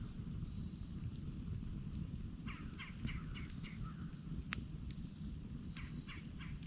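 Campfire burning with a steady low rumble and scattered sharp crackles and pops. About two and a half seconds in, a bird gives a quick run of about six short raspy calls, then three more near the end.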